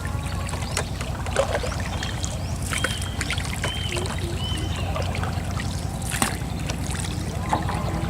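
Small boat motor running steadily, a low, evenly pulsing rumble. A few short high chirps come about three seconds in.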